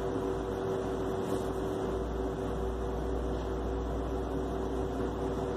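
Steady mechanical hum and hiss, with two steady mid-pitched tones over a low drone, unchanging throughout.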